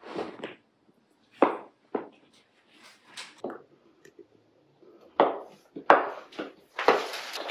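Plastic ball-pit balls knocking and bumping as kittens bat and chase them: a string of short, separate hollow knocks. Near the end a dense, continuous wash of sound sets in.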